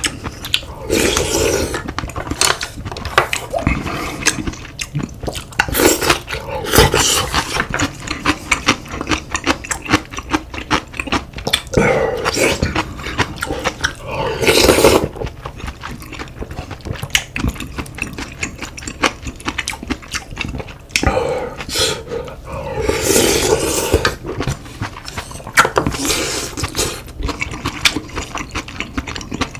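Close-miked eating: loud bursts of slurping and chewing every few seconds, over a run of small clicks and smacks.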